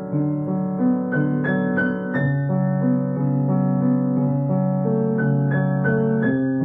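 Solo piano music: single melody notes struck over held lower notes, the melody moving a few notes a second.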